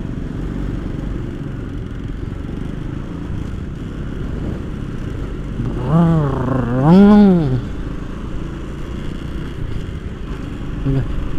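Motorcycle engine running steadily with road and wind noise as the bike rides off. A short voice sound with a rising and falling pitch comes about six seconds in.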